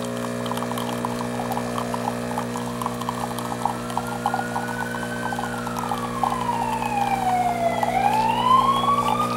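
Home espresso machine humming steadily while brewing, with a fine crackle of espresso dripping and sputtering into the glass. From about a third of the way in, a whistling tone glides slowly up, sinks to a low point near the end, then climbs again.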